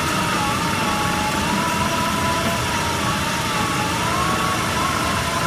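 Lightweight concrete brick wire-cutting machine running: a steady mechanical noise with a whine that slowly wavers up and down in pitch.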